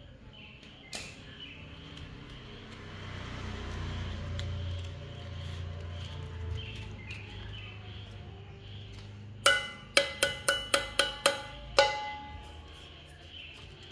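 Soft rustling of sandpaper being folded, then a stainless steel mug knocked and handled: a quick run of about eight sharp, ringing metallic taps over a couple of seconds, and one more shortly after.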